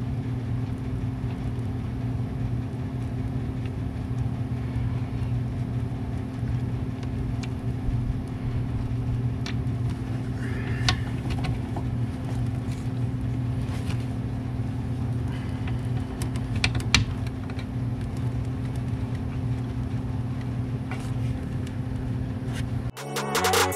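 A steady low hum, like a running engine, runs under scattered light metallic clicks of a wrench working the brake line fittings on a master cylinder. The hum cuts off near the end.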